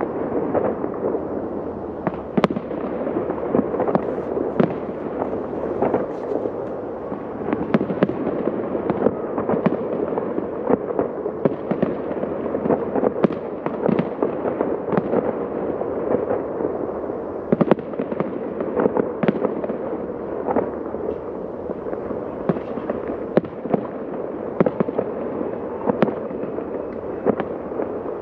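Professional fireworks display bursting continuously: a dense run of sharp bangs and crackling reports, many each second, over a steady rumble.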